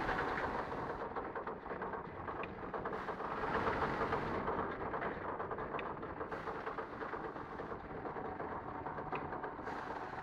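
Muller Martini DS 240 three-knife book trimmer running, a steady dense mechanical clatter of rapid ticks, with a brighter, hissier swell about every three seconds.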